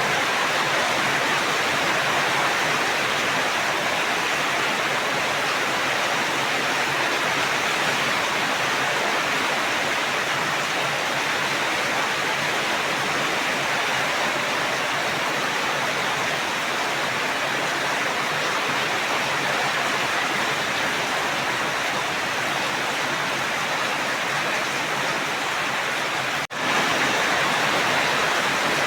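Steady rain falling, an even rushing hiss with no distinct drops or thunder; it cuts out for an instant near the end.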